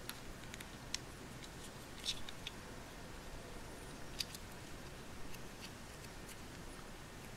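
Faint, scattered clicks and light handling of a plastic Play-Doh popsicle mould as it is pressed shut around the dough and turned in the hands.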